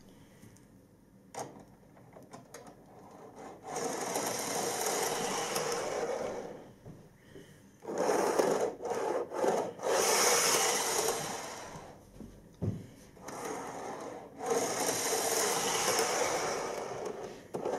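Model train running along the layout's track: a whirring, rasping rattle of wheels on rail and motor that swells and fades several times as the train passes close by and moves away.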